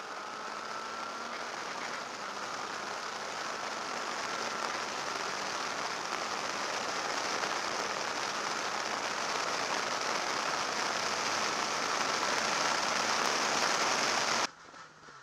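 Steady hiss at a camera mounted on the outside of a moving Renault Clio rally car, from its tyres on the lane and air rushing past. It grows slowly louder and cuts off suddenly near the end.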